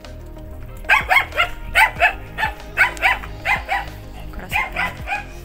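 A small dog yapping repeatedly at the newly arrived visitors, about a dozen short, high-pitched barks, often in quick pairs, starting about a second in.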